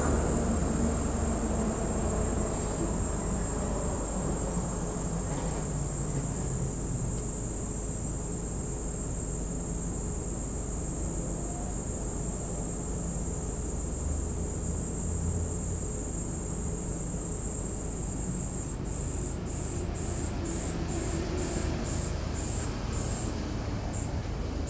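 An insect singing: a steady, high-pitched buzzing trill that breaks into short separate pulses, about two a second, near the end, over a low background rumble.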